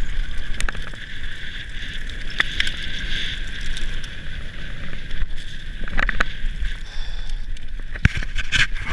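Mountain bike rolling down a loose scree track: tyres grinding over stones with a steady hiss and low rumble, and the bike rattling with sharp knocks from rocks. There are a few single knocks, then a quick cluster of them near the end.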